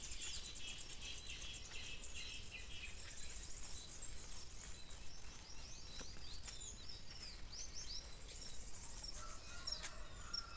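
Several birds chirping and calling: quick repeated high notes in the first few seconds, then scattered short whistles sliding up and down, over a faint low rumble.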